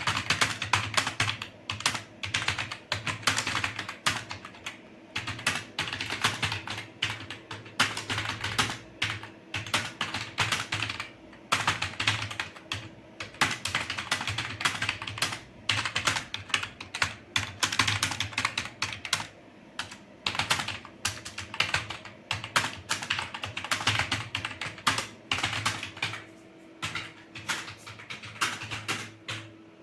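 Fast continuous typing on an old, cheap computer keyboard whose keys rattle, at about 58 words a minute. The clatter comes in runs of a second or two with brief pauses between them.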